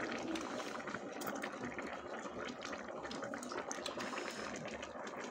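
Hotpot broth boiling at the table: a steady bubbling hiss with scattered small clicks and pops.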